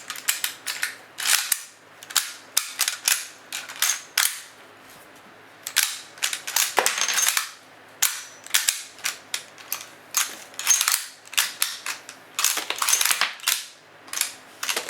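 Repeated sharp metallic clicks and clacks of 7.62x54R cartridges being cycled through a Mosin-Nagant M44 bolt action: the bolt is worked open and shut and rounds are chambered and ejected, with a short pause about five seconds in.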